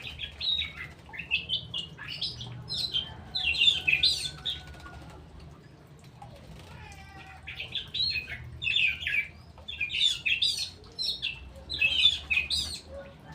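A songbird singing in two bouts of quick, bright chattering phrases, with a pause of about three seconds between them.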